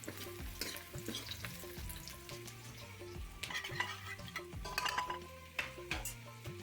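Jackfruit curry sizzling as it fries in a pan, stirred with scraping, clinking strokes of a spatula against the metal. Soft background music with a repeating note runs underneath.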